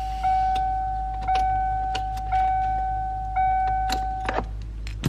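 A car's electronic warning chime dinging about once a second, four times, each ding fading before the next, then stopping with a click near the end. A few sharp clicks sound between the dings.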